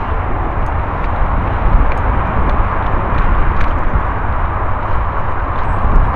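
Mountain bike rolling along a forest trail over leaves and branches: a steady, noisy rumble with scattered sharp clicks.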